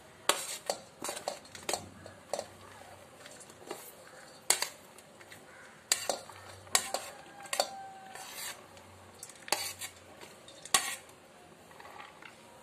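A metal spoon and a ceramic plate clink and knock against a steel mixing bowl as chopped cabbage, carrot and capsicum are scraped off the plate into it. The sharp clinks come irregularly, about a dozen of them.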